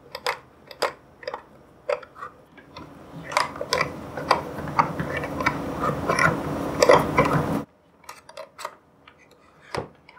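Hard plastic-and-metal clicks and clatter as beaters are pushed and twisted into the sockets of an electric hand mixer, failing to lock in. For several seconds in the middle a low steady hum runs under the clatter, then cuts off suddenly.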